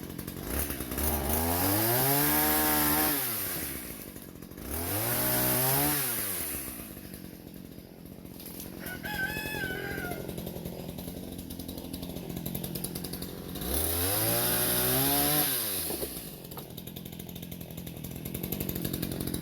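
Ryobi 16-inch two-stroke gas chainsaw revved up to full throttle three times, cutting small branches, its pitch rising and falling each time and dropping back to idle in between. A rooster crows once, briefly, about nine seconds in.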